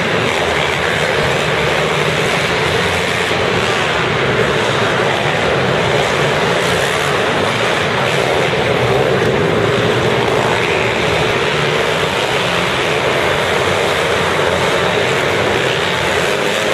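Several mini motocross bikes' small four-stroke engines revving together on the track, an unbroken steady din.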